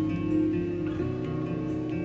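Background music with held notes, the chord changing about a second in.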